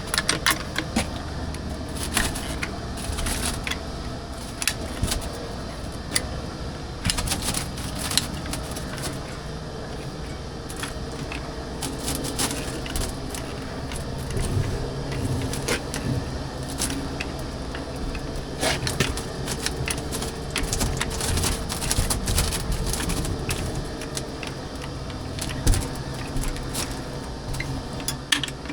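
Irregular clicks, taps and knocks of hands-on work, over a steady low hum.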